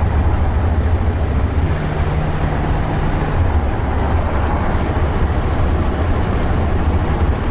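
Inside the cabin of a moving 1979 Chrysler Cordoba: steady low engine and road rumble with tyre noise on a wet road. A brief low hum joins in about two seconds in.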